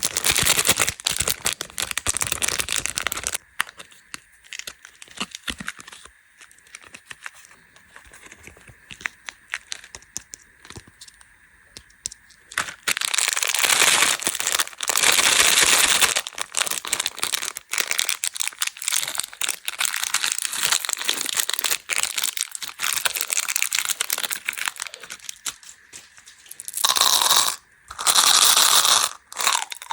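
Candy wrappers and packaging crinkling and being torn open, in dense crackly rustling with many small sharp clicks. Louder, fuller bursts of tearing come at the start, around the middle and near the end.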